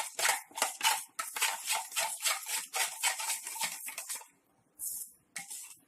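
A utensil stirring a thin mixture of oil, water and ground spices in a bowl: quick, rhythmic scraping strokes, about five a second, that stop about four seconds in, followed by two short scrapes.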